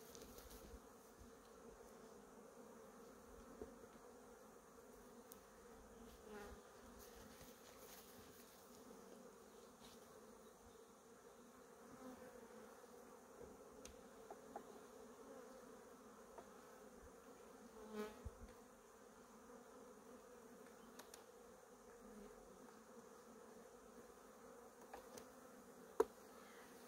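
Honeybees humming steadily around an open hive, a faint low drone. A few soft knocks break in, with one sharp click near the end.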